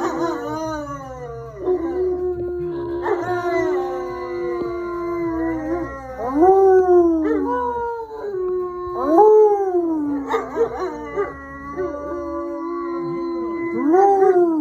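A dog howling, again and again: each howl swoops up and then holds a long steady note, and some howls overlap.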